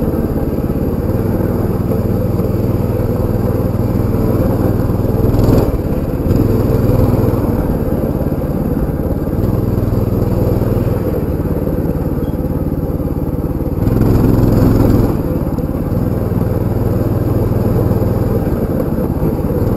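Baja 200 motorbike engine running while riding over rough dirt, the throttle opening and easing off every second or two. Louder pulls come about five seconds in and again at around fourteen seconds, with wind noise on the microphone throughout.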